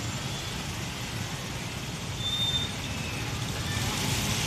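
Road traffic passing, engines and tyres making a steady low rumble, with a brief faint high tone a little past halfway.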